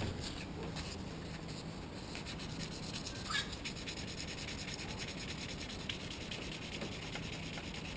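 Fine 1200-grit sandpaper rubbing over a cast Nordic gold (copper-alloy) coin in quick, repeated back-and-forth strokes: the final sanding stage before polishing.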